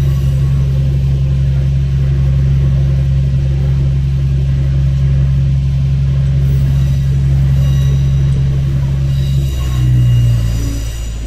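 Diesel railcar engine running under steady power, a deep even drone. About nine and a half seconds in its note drops and briefly swells, then eases off.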